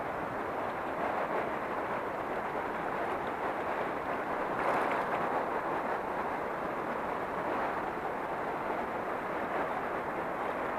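Steady rushing of river water flowing past close by, with a brief louder patch about halfway through.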